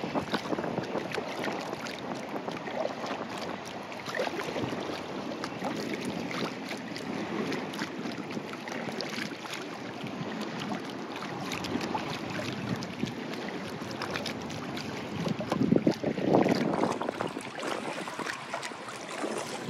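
Water lapping and splashing around a rowed inflatable dinghy, with many small splashes and wind buffeting the microphone, louder about fifteen seconds in.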